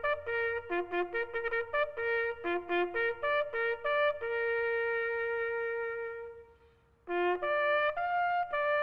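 Solo bugle call. It opens with quick runs of short notes, then one long held note that fades away. After a short pause the call resumes about 7 seconds in.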